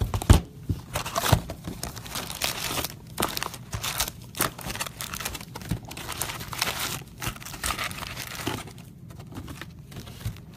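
Crinkling and rustling of plastic wrap and foil trading-card packs as a box of Donruss Optic baseball cards is opened and its packs are pulled out and stacked. It is dense in the first few seconds, then sparser with scattered sharp rustles.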